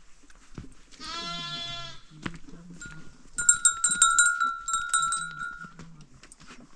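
A lamb bleats once, about a second in. From about three and a half seconds a livestock bell clanks rapidly for about two seconds, the loudest sound here.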